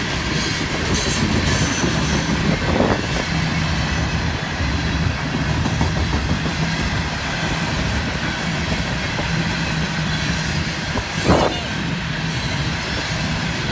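Norfolk Southern freight train cars rolling past on the rails in a steady rumble. There is a sharp clank about eleven seconds in.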